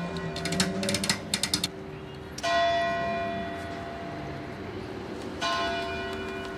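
A broom sweeps pavement in quick scraping strokes for the first couple of seconds. Then a church bell is struck twice, about three seconds apart, each stroke ringing on and slowly fading.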